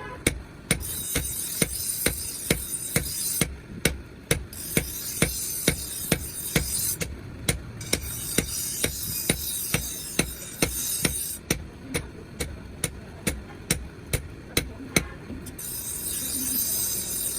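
Hammer striking iron on an anvil in a steady rhythm of about two to three blows a second, with a couple of short pauses, as an axe head is forged.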